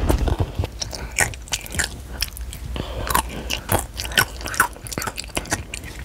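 A child chewing Sun Chips close to a clip-on microphone: irregular crisp crunches throughout.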